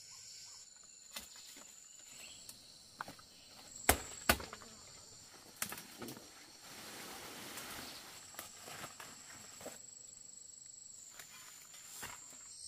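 Steady high-pitched insect chirring, with a few sharp knocks or snaps scattered through it (two loudest about four seconds in) and a brief rustling a little past the middle.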